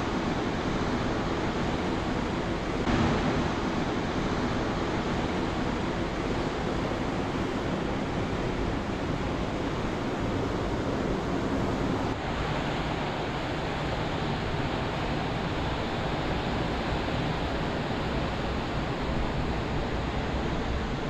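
Ocean surf: a steady wash of waves breaking, with some wind.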